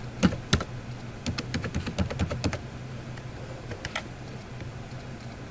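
Computer keyboard typing: a quick run of keystrokes as a user name and password are entered, then a single click about four seconds in, over a low steady hum.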